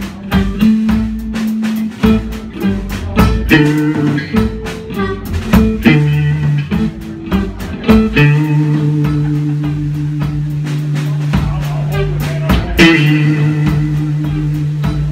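Live blues-rock band playing electric guitars over a drum kit. From about eight seconds in, the drum hits thin out and the band holds long, steady notes.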